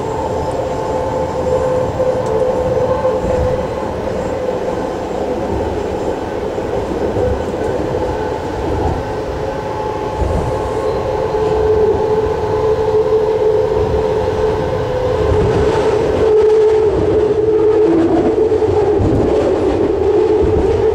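Inside a BART train car running at speed: a steady rumble of wheels on rail with a held whine, getting a little louder partway through, and a second, lower tone joining near the end.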